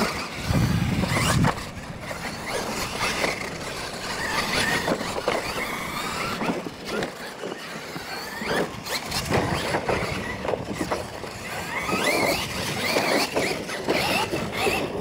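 Two Losi LMT radio-controlled monster trucks racing on dirt: the high-pitched whine of their brushless electric motors and gear drivetrains rising and falling as they accelerate and slow, with a louder burst about a second in as they launch.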